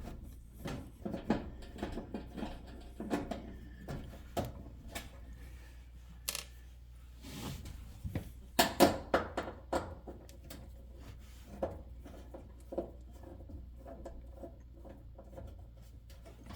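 Scattered small clicks, taps and knocks of a screwdriver and screws being worked on the back of an electric range's control panel, with a louder cluster of knocks about nine seconds in. A steady low hum runs underneath.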